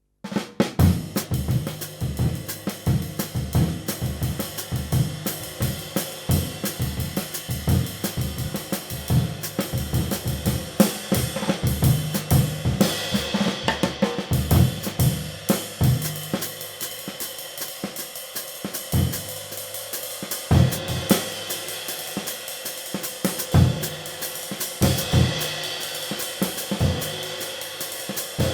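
A 19.5-inch hand-hammered B20 bronze light ride cymbal played in a drum-kit groove, over kick drum, snare and hi-hat, with a steady shimmering wash. The cymbal wash swells louder twice, about halfway through and near the end.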